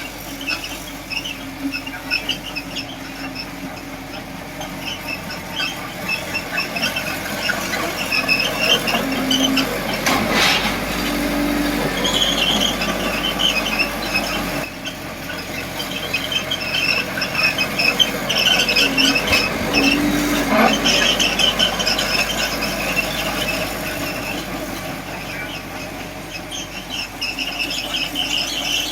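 Miniature D20P model bulldozer at work, its tracks and running gear squealing in rapid trains of short high squeaks over the hum of its small drive motor, which changes pitch briefly twice.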